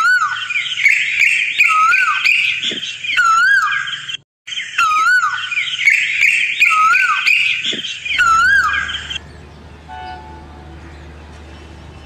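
Birdsong: a loud whistled call that rises and falls, repeating about every second and a half over a dense chorus of other birds' chirps. The passage breaks off briefly about four seconds in and plays again, then gives way about nine seconds in to a much quieter low hum.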